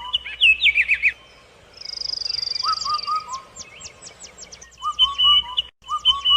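Songbirds singing: repeated phrases of short whistled notes and quick falling glides, with a fast high trill about two seconds in. The sound cuts out for a moment near the end.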